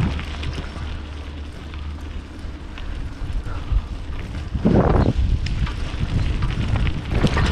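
Wind buffeting the microphone: a steady low rumble, with two louder rushes about five seconds in and near the end.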